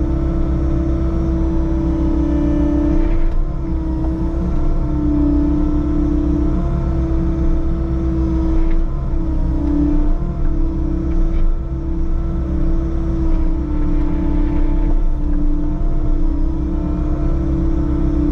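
Diesel engine of a compact earthmoving machine running steadily while grading, with a strong steady hum over the engine note that wavers slightly.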